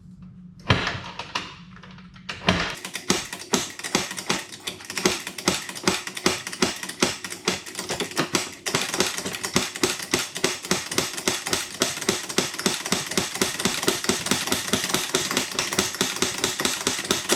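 Can-Am ATV engine kick-started: two single heavy thumps, then the engine catches and runs with a fast, even knocking beat of about five strokes a second. It cuts off abruptly.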